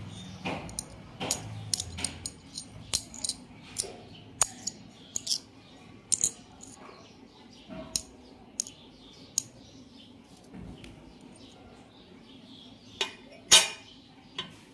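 A small metal piece tapping and clicking against a copper coin held in the hand: irregular sharp metallic clicks, then two louder knocks near the end as the coin is set down on a stone floor.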